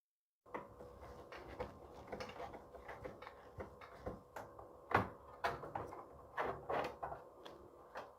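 Irregular light clicks and knocks of parts and cables being handled inside a computer case, starting about half a second in, over a faint steady hum.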